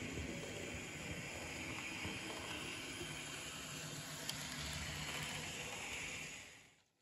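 Hornby TT120 A4 model locomotive running on a tabletop track, a steady whir from its motor and wheels on the rails, fading away near the end.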